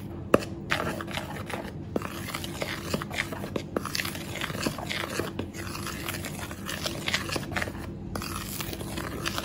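Metal spoon stirring a dry flour coating mix in a plastic bowl: a steady run of irregular soft scrapes and crunches, with one sharper knock about half a second in.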